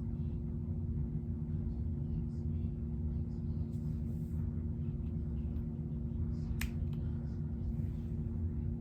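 Steady low background hum, with a few faint small clicks and taps and one sharp click about six and a half seconds in.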